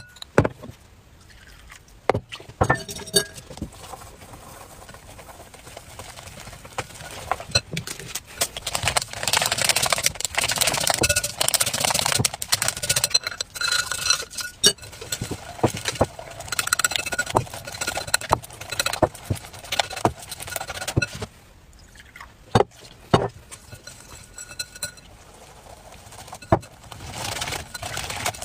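Wire whisk beating egg and flour into batter in a glass bowl: fast clinking and scraping of metal wires against the glass, with a faint ringing of the bowl. The whisking is densest and loudest through the middle, with scattered spoon taps and knocks on the bowl before and after.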